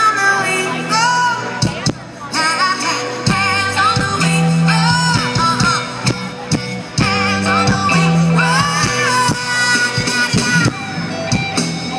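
Live rock band playing, with a woman singing long, arching lines over bass and drums.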